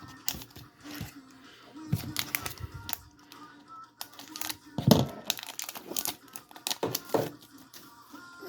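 Foil booster-pack wrapper being torn open and crinkled, in irregular sharp crackles that are loudest about 2, 5 and 7 seconds in, with soft background music underneath.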